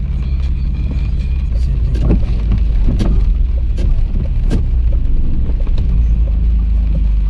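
Inside a BMW E34 525 driving in heavy rain: the straight-six engine and tyres on the wet road make a steady low drone. A run of sharp ticks and knocks comes between about two and five seconds in.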